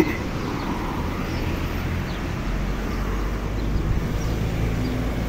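A motor vehicle running, a steady low engine rumble with road noise, growing a little louder about halfway through.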